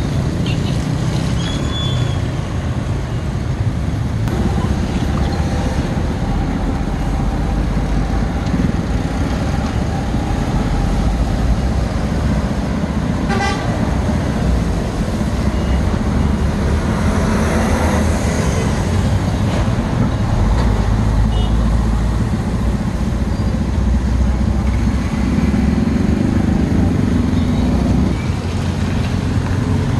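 Busy street traffic, with motorbikes and cars passing in a steady rumble and a few short horn toots.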